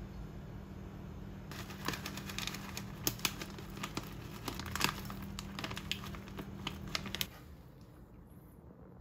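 Plastic pouch of seaweed flakes crinkling as it is handled and shaken over a bowl, irregular crackles starting about a second and a half in and stopping suddenly after about six seconds.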